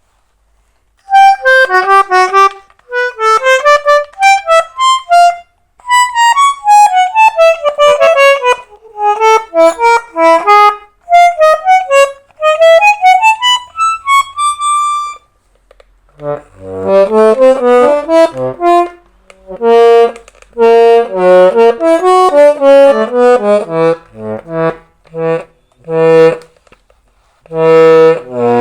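Chemnitzer concertina being played: short melodic phrases in the treble for about the first fifteen seconds. After a brief pause, fuller playing follows, with low bass notes under short, repeated chords.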